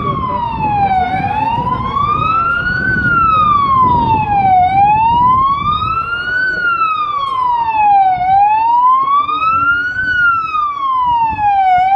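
Police car siren wailing. Its pitch rises and falls slowly, one full cycle about every three and a half seconds. Under it is a low, uneven rumble of noise.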